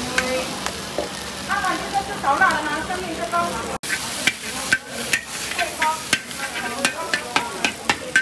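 Noodles and bean sprouts sizzling in a large black wok as a metal spatula stirs and tosses them, with frequent sharp scrapes and clanks of the spatula on the wok. The sound cuts out for an instant a little before halfway.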